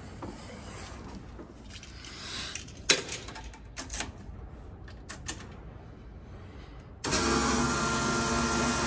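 Clicks and small rattles of keys and switches being handled. About seven seconds in, a steady electric whine with a hum under it starts suddenly as the race car's power is switched on: its electric fuel pumps running.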